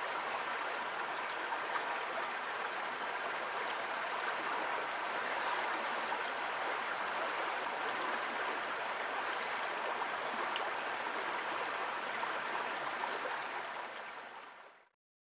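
Flowing stream water, a steady rush with a few faint high-pitched notes over it, fading out near the end.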